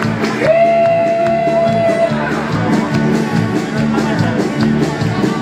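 A live rock band playing through the stage PA, with electric guitars over a steady beat. A long held note rings out about half a second in and fades near the two-second mark.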